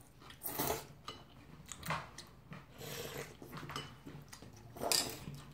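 Udon noodles being slurped from chopsticks, several short slurps spaced through a few seconds.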